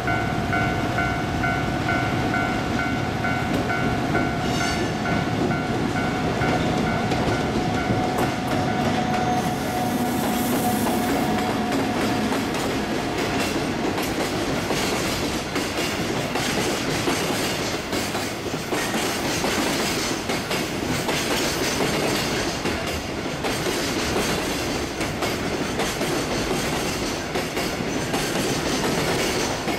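Freight train wagons rolling past, their wheels clacking steadily over the rail joints. A steady tone runs over the train noise for about the first twelve seconds, then fades.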